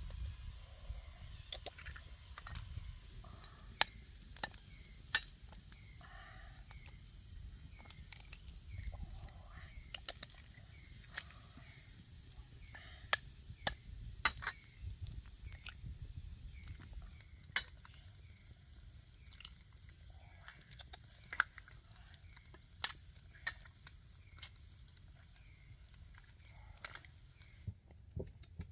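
Food sizzling on a hot cooking stone, with scattered sharp crackles and pops.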